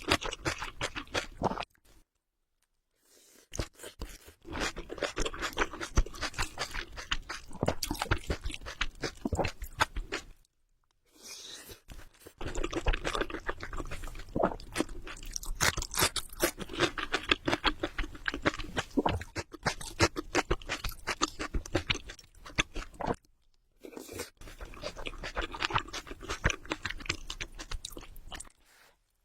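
Close-miked chewing of spicy ramen noodles: dense runs of small wet smacks and crunchy clicks, broken by short silences three times and again near the end.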